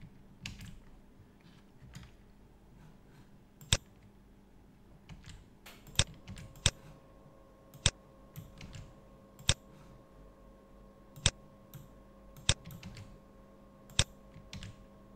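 Computer keyboard and mouse clicks while editing a spreadsheet: about eight sharp single clicks spaced one to two seconds apart, with fainter key taps between, over a faint steady hum.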